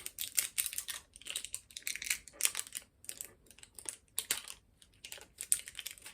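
Packaging crinkling and crackling in the hands, a quick irregular run of small crackles, as incense cones are unwrapped.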